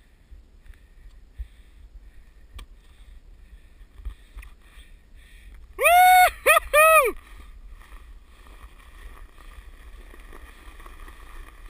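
Three loud, high-pitched vocal calls in quick succession about halfway through, each rising and then falling in pitch, with only faint ticking and rustling before and after.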